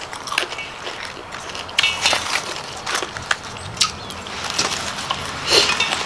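Close-up chewing and crunching of raw vegetables with raw beef salad: a string of sharp, crisp clicks. About five and a half seconds in, a louder rustle as a bunch of leafy greens is handled.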